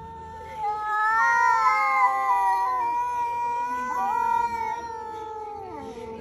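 Two cats, an orange-and-white cat and a grey tabby, yowling at each other in a face-to-face standoff. One long, low, wavering yowl runs throughout. A louder, higher yowl joins it about half a second in and overlaps it until it fades out at about four and a half seconds.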